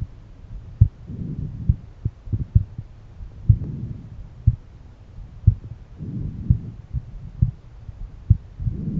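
An adult man's heartbeat heard through a stethoscope on the chest: low, dull thumps at about one beat a second. A soft low rushing noise swells and fades every two to three seconds behind the beats.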